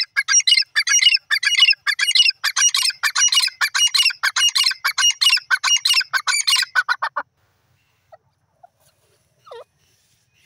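Grey francolin (teetar) calling: a loud, fast series of repeated notes, about three a second, that stops about seven seconds in. One soft, short note follows near the end.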